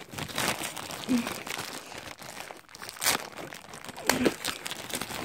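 Cardboard box and plastic packaging crinkling and rustling as they are pulled open by hand, in a series of short crackly bursts.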